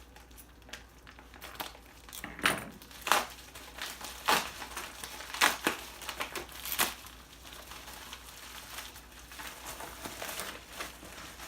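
Scissors cutting open a parcel, with packaging crinkling and rustling. About six sharp snips come in the first half, and quieter rustling follows.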